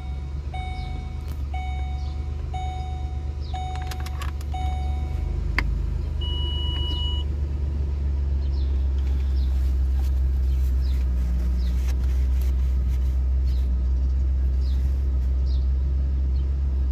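Ford Explorer cabin with the engine idling as a steady low hum. A dashboard warning chime sounds six times, about once a second, then after a click a single higher beep lasts about a second. The hum grows slightly louder as the cabin blower fan runs.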